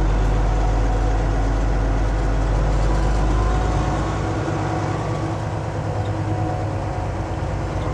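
Semi truck's diesel engine running at low speed, a steady low rumble heard from inside the cab; the deepest part of the rumble eases off about halfway through.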